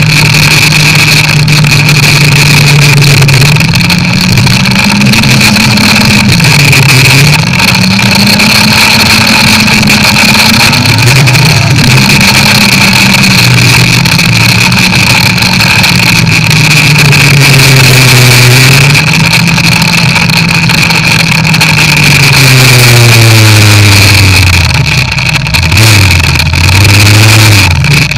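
Snowmobile engine running along a trail, its pitch rising and falling several times as the throttle is opened and eased. Near the end it slows right down with a few short throttle blips, then steadies. A steady high whine runs underneath.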